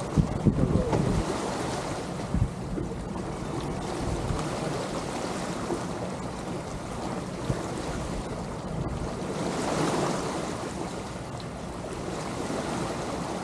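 Water washing steadily along the hulls of a sailing catamaran under way in light wind, with a few gusts of wind buffeting the microphone near the start.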